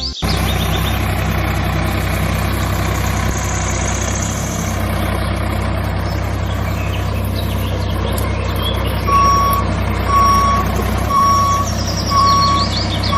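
Heavy truck-type diesel engine running steadily, starting abruptly. About nine seconds in, a reversing alarm starts beeping about once a second.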